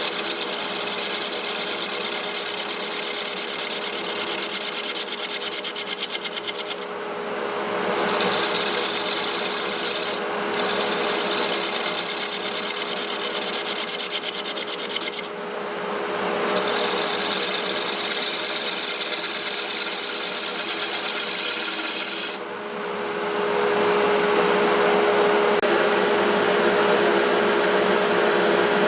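Wood lathe running while a turning tool cuts into a hard burl, hollowing it out. The lathe's steady hum carries on throughout, and the cutting hiss stops briefly four times as the tool comes off the wood and goes back in.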